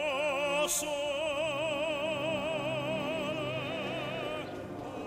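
Background music: an operatic voice holds one long high note with wide vibrato over orchestral accompaniment. The note shifts pitch slightly just before a second in and ends about four and a half seconds in.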